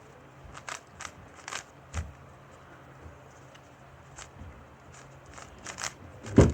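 Carbon-fibre-covered Rubik's cube being turned by hand during a solve: scattered short plastic clicks and clacks of the layers turning, with a louder knock near the end.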